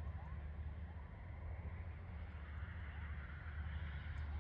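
Distant jet airliner engine noise across an airfield: a steady low rumble, with a broad hiss building from about halfway through as the aircraft on the runway comes nearer. Faint short rising chirps repeat a few times a second over it.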